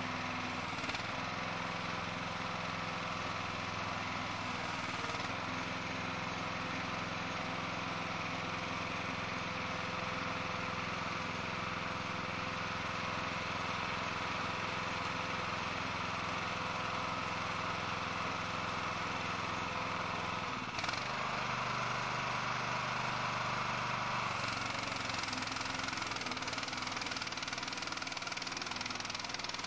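Engine of a burial vault handler rig running steadily, with a slight change in its note about two-thirds of the way through.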